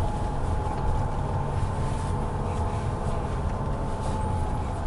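Jeep Renegade Trailhawk's 2.0-litre diesel engine running as the car drives slowly over rough dirt, heard inside the cabin. It is a steady low rumble with a thin, steady whine above it.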